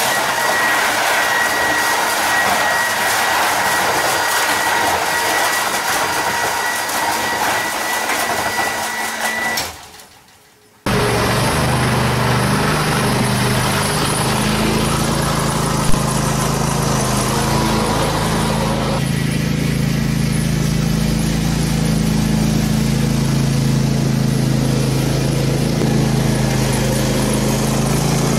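Petrol engine of a John Deere ride-on lawn mower running steadily, with one sharp click partway through. Before a cut about ten seconds in, a different loud, noisy sound with a steady high whine.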